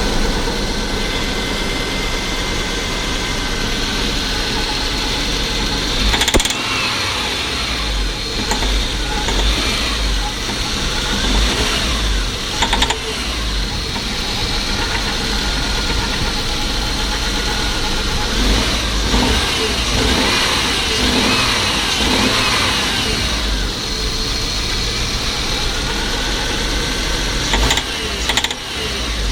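Car engine running with a knock, the sign of a burnt-through cylinder head gasket, which the owner puts down to a defective gasket.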